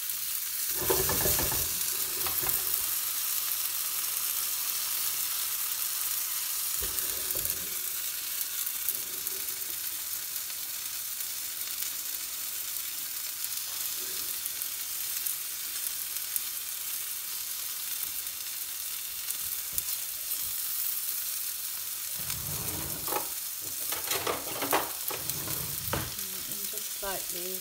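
Breaded chicken breast pieces frying in oil in a nonstick frying pan on medium heat, with a steady sizzle. A utensil knocks and scrapes against the pan about a second in and again near the end as the pieces are turned.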